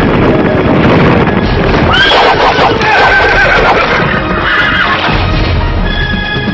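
A horse whinnying, one long wavering call that rises and then falls, starting about two seconds in, over dramatic background music.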